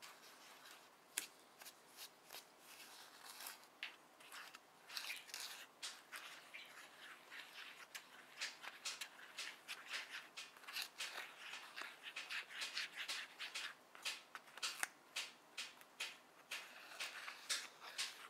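Small plastic spoon stirring powdered candy mix and water into a paste in a plastic tray: quick irregular scraping and clicking strokes, sparse at first and faster and denser from about five seconds in.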